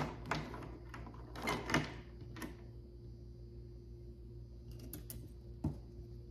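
Light clicks and rustles of a small decorative egg garland being handled and laid on a tray, several in the first couple of seconds and a couple more near the end, over a faint steady hum.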